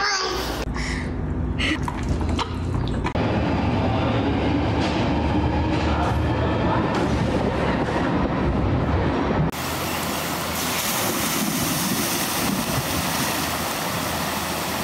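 Steady rumbling noise for several seconds. About nine and a half seconds in it cuts to an even, rushing hiss of floodwater pouring across a flooded ford.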